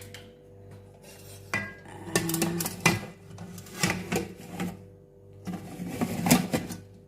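Metal utensils clinking and scraping against a pan as pieces of grilling pork are turned over, in three bursts of clatter over a steady low hum.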